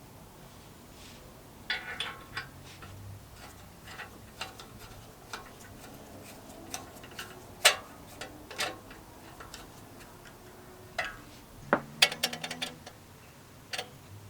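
Irregular clicks, taps and light clinks of small metal parts being handled, with a quick cluster of sharper clicks about twelve seconds in, one of which rings briefly.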